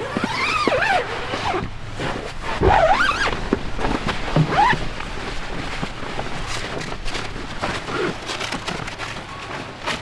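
A dog whining and yowling in several short rising-and-falling calls during the first five seconds, over steady rustling and crunching.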